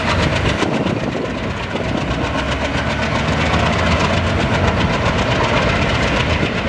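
Passenger train running past at speed, its coaches' wheels clattering steadily on the rails with a loud, continuous rumble.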